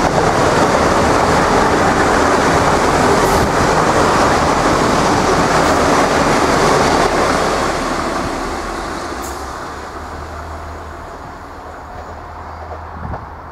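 Irish Rail 29000 class diesel multiple unit passing close by, its underfloor engine and wheels on the rails loud and steady for about seven seconds, then fading away as the train runs off into the distance.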